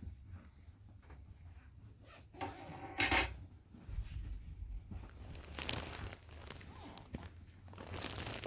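Objects being handled, with small knocks and clinks over a low steady hum. One louder clatter comes about three seconds in.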